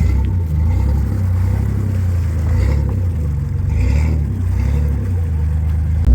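Off-road truck's engine running at low revs, its pitch rising and falling with the throttle. Just before the end it switches abruptly to a louder, deeper engine rumble.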